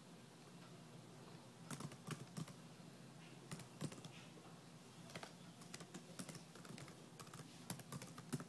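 Faint keyboard typing: irregular clicks of individual keystrokes coming in short runs after a quiet first second or so.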